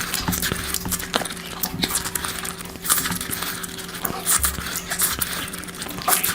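Close-up eating sounds of someone eating curry: wet chewing, smacking and squishing, with many short irregular clicks.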